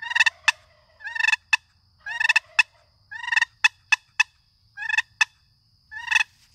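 Long box turkey call clucking: the paddle is jerked sharply across the box, giving about a dozen short, separate clucks, mostly in quick pairs, imitating a turkey's cluck.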